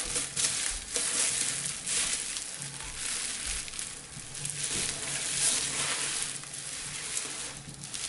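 Packing material crinkling and rustling as exhaust parts are unwrapped and handled, an irregular crackle throughout.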